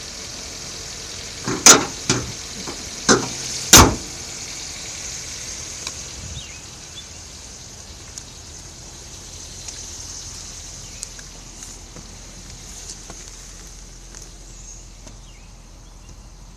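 2017 Nissan Micra SV's engine running steadily, recorded for the tapping/knocking noise that the owner takes for an engine fault. Four sharp, loud knocks come between about one and a half and four seconds in; after that only faint, irregular ticks sound over the engine's steady running.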